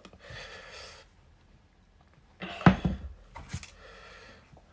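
Handling noise as a pair of sneakers and their box are moved about: a soft rustle, then a sharp knock a little past halfway, followed by a few lighter clicks.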